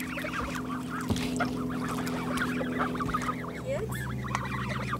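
A small flock of young Canada geese calling all together: many rapid, high-pitched, overlapping calls that thin out about three and a half seconds in.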